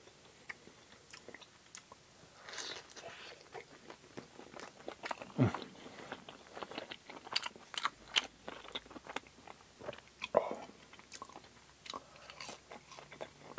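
Close-miked chewing of crispy battered, fried plant-based fish fillet, with irregular crunches and wet mouth clicks.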